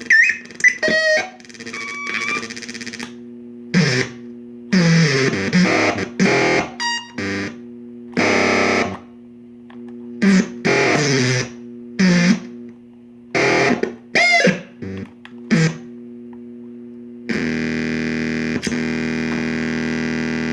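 Joystick-controlled noise synthesizer played in short, distorted bursts and swooping pitch glides over a steady low drone. About 17 seconds in it settles into one continuous buzzing tone.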